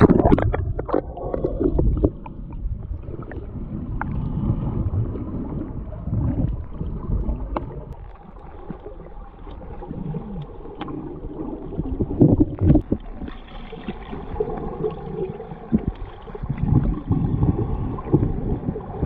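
Muffled underwater water movement: irregular sloshing, gurgling and bubbling swells from a swimmer moving through the water, with scattered small clicks.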